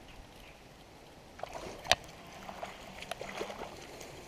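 Spinning reel being cranked, a faint steady whir with scattered ticks, as a hooked bass is reeled in. One sharp knock about two seconds in.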